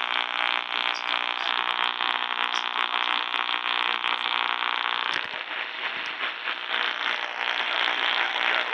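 Radio static from an AM receiver tuned to the AM band: a steady hiss with no programme audible, turning rougher and more crackly about five seconds in.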